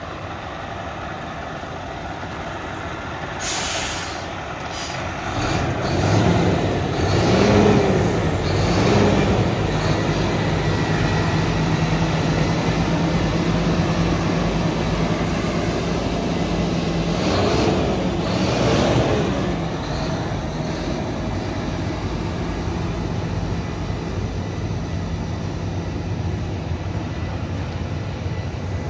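Scania P230 truck's diesel engine running as the lorry is driven, with a short air-brake hiss a few seconds in. The engine revs rise and fall twice, then it settles to a steady run.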